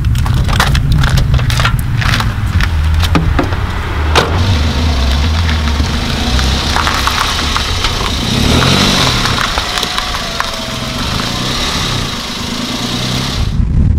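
Clicks and knocks of a small Toyota hatchback's door being opened and handled, with crunching steps on gravel, over a steady low rumble.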